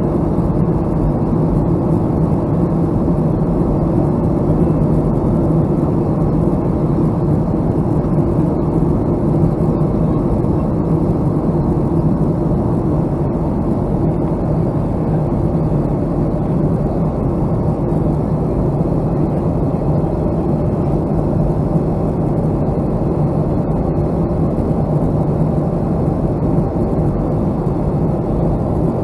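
Steady cabin noise of a Boeing 757-200 in flight: an even low rush of engine and airflow with a constant hum underneath, unchanging throughout.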